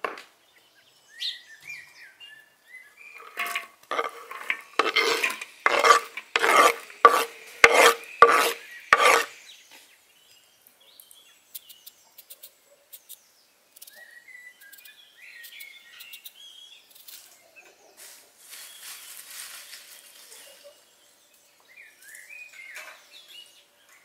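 A kitchen knife cutting and scraping raw vegetables by hand: a run of about a dozen rasping strokes, roughly two a second, then quieter scraping as a potato is peeled. Birds chirp faintly.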